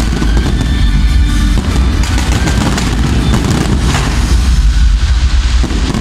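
Fireworks going off in a dense, continuous barrage of booms and crackles, with a sharper crack about four seconds in.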